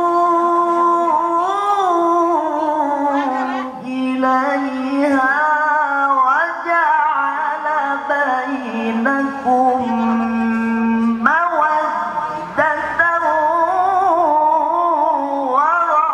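A man reciting the Qur'an in the melodic tilawah style, amplified through a handheld microphone: one voice holding long notes with rapid trembling ornaments and glides up and down, with brief breaks about four seconds in and again near eleven seconds.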